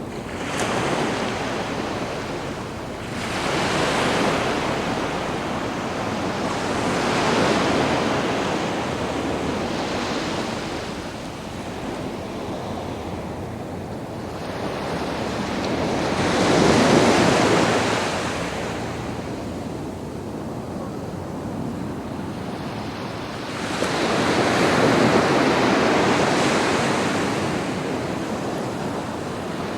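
Sea waves breaking and washing up a sandy beach, the surf swelling and fading in slow surges every several seconds, with the biggest washes in the second half.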